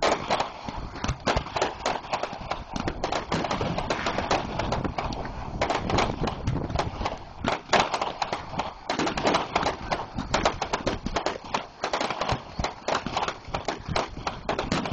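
Fireworks crackling: a dense, irregular run of small sharp pops from crackle stars, easing briefly about five and a half and nine seconds in.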